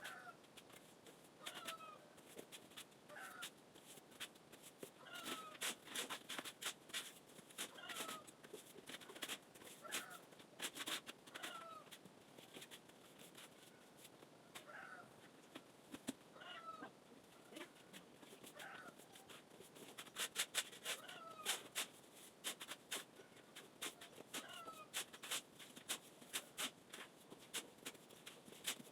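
An animal's short, falling calls, repeated about every second and a half, over scattered clusters of clicks and knocks.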